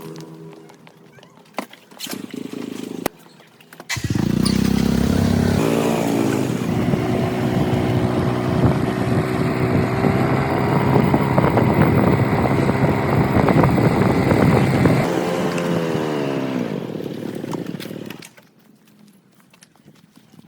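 A motor starts after a few clicks, runs up in pitch, runs steadily for about ten seconds and then winds down with a falling pitch before stopping.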